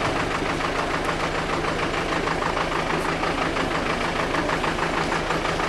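A heavy machine's engine idling steadily with an even, rapid pulsing beat.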